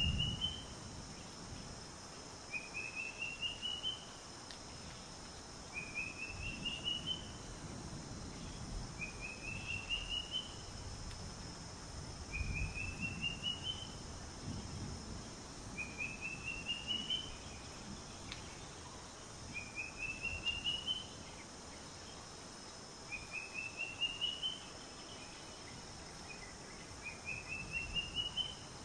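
A bird repeating a short song phrase about every three and a half seconds, each a quick run of notes rising in pitch, over a low rumble.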